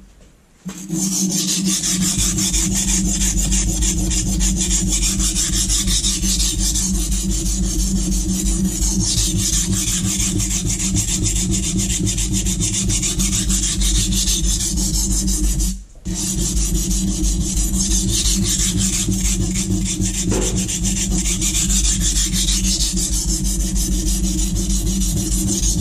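Kitchen knife blade being ground back and forth on the coarse side of a Norton Crystolon silicon-carbide bench stone: a continuous, rapid scraping that stops briefly once about two-thirds of the way through. The strokes are regrinding the edge to a lower angle, widening the bevel and raising a light burr.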